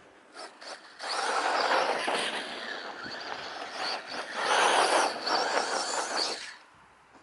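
Brushless-powered RC short-course truck running through grass: a high motor whine over the swish of tyres through the grass. The sound starts about a second in, swells twice, and falls away near the end.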